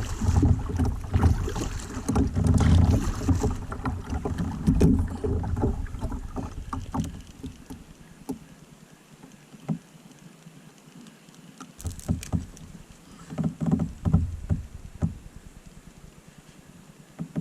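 Kayak being paddled: water splashing and sloshing against the hull, loud and uneven for the first several seconds, then quieter with a few sharp knocks, and splashing again near the end.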